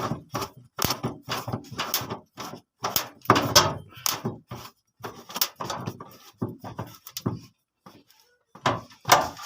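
Nuts on a washing-machine assembly being tightened with a hand wrench: a rapid, irregular series of metallic clicks and clanks, several a second. They pause briefly near the end, then resume.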